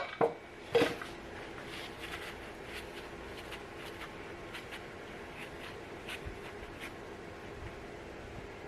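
Three sharp metallic clanks in the first second, the first the loudest, then faint scattered clicks and taps over a steady hum: hand tools and parts being handled while the top end of a Dodge 5.2 Magnum V8 is taken apart.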